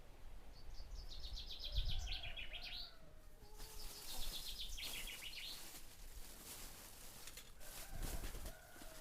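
A small bird singing a fast, high trill twice, with faint low rumbles in between.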